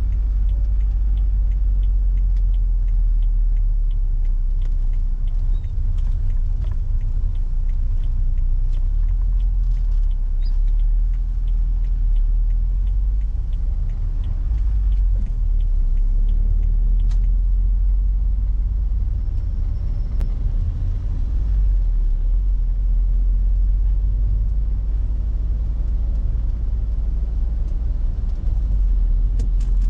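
Peugeot 406 on the move: a steady low rumble of engine and road noise, with faint light ticks through roughly the first ten seconds.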